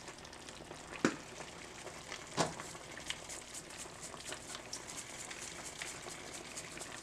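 Sausage, pasta and vegetables in a little chicken stock sizzling faintly and steadily in a nonstick pan, with fine crackles throughout. Two sharp clicks stand out, about a second in and again about a second and a half later.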